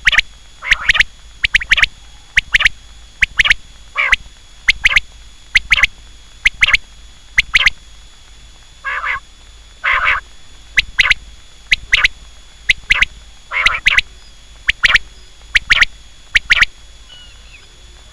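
Quail calling over and over: loud, short, sharp notes in quick groups of two or three, about one group a second, stopping near the end.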